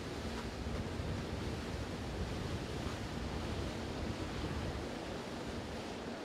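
Steady wind on the microphone over the wash of waves, an even noise without distinct events.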